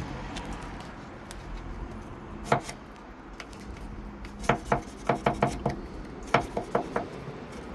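Screwdriver tapping and prodding at a clogged drain hole in a Mercedes-Benz Sprinter van's body panel, clearing out packed dirt. There is one sharp tap about two and a half seconds in, then quick runs of several taps in the second half.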